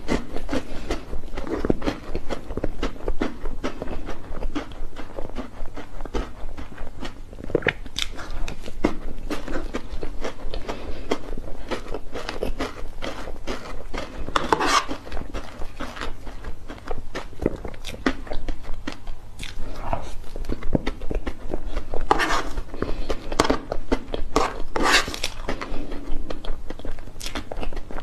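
Close-miked chewing and wet mouth clicks of someone eating soft cream mousse cake topped with chocolate cookie crumbs, with a few louder clusters of smacks. A metal spoon scoops into the cake near the end.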